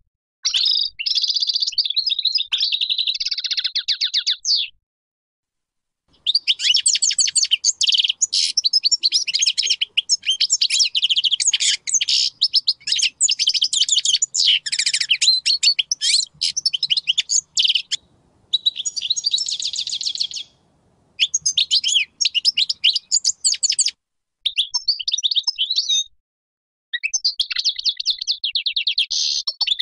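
A European goldfinch of the large 'Major' form singing: long runs of fast, high twittering song broken by several short pauses.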